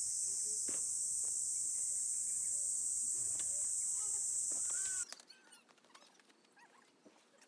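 Steady high-pitched insect drone with scattered bird calls. Both cut off abruptly about five seconds in, leaving quieter bird chirping.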